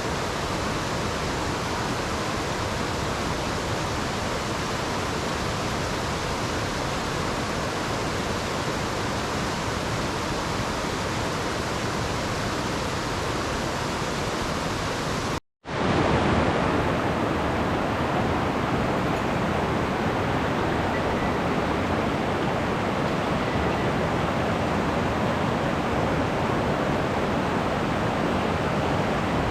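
Steady rushing of a mountain stream's fast-flowing water. It cuts out for a moment about halfway through, then resumes slightly louder.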